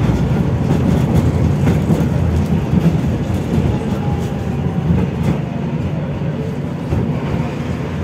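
Tatra T3E tram running along the track, heard on board: a steady low rumble of wheels on rails with a few sharp clacks spread through it.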